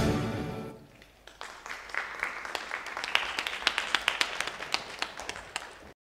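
The last note of the ballet music dies away, then audience applause of many separate hand claps rises and carries on, cutting off suddenly near the end.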